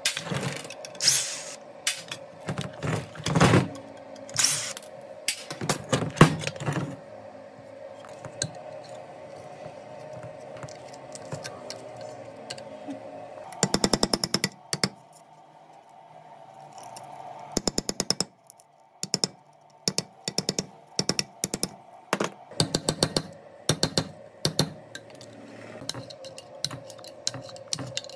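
Metal parts of a rusted stirrer being knocked and worked with hand tools: irregular sharp clanks and taps, with a quick rattling burst of strokes about halfway through, over a faint steady hum.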